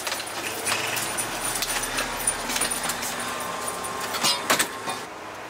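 A firefighter's turnout gear, breathing apparatus and hand tools jangling and rattling with his footsteps, over a steady rushing background, with a few louder clanks about four and a half seconds in.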